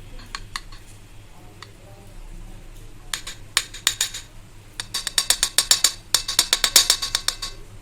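Sharp clicks or taps of hard kitchen objects: a few single ones about three seconds in, then two fast runs of about ten clicks a second.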